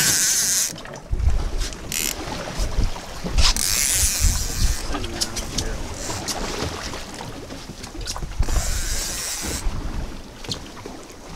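Wind rumbling on the microphone aboard an open boat at sea, with three short spells of hiss and scattered small clicks.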